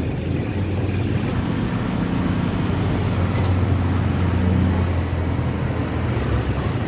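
Steady low engine rumble of street traffic.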